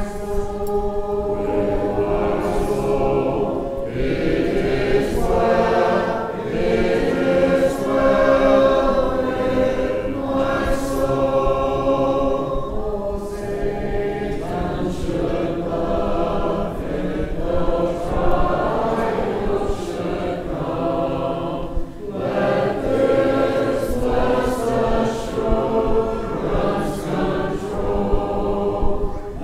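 A church congregation singing a hymn unaccompanied, many voices together in held phrases with brief breaks between lines.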